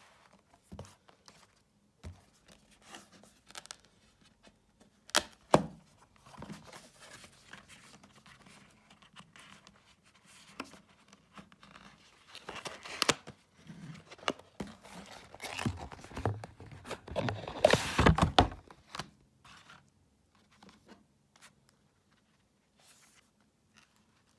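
Packaging of a TV-series box set being torn and crinkled open by hand, with scattered clicks and knocks of handling; the tearing and crinkling is busiest and loudest a little past the middle, then dies down to occasional light taps.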